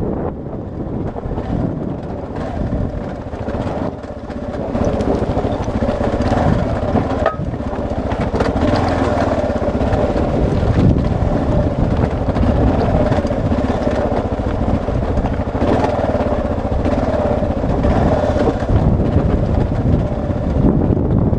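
Kawasaki KLR650's single-cylinder engine running as the bike rides a rocky dirt trail, with wind buffeting the helmet-mounted microphone and frequent short knocks from the rough ground. It gets louder about five seconds in.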